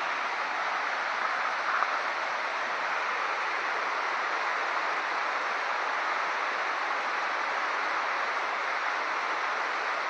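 Steady rushing of river water over rapids in the gorge below, an even hiss.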